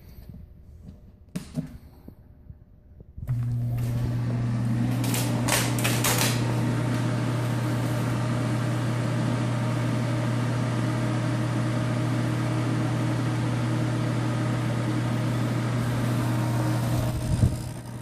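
ProTemp Sun-Stream PT-70-SS radiant kerosene heater switched on for its first start: a click, then about three seconds in its fan and fuel pump start with a steady hum. A short grinding rattle comes a couple of seconds later as the pump primes, and the burner does not light.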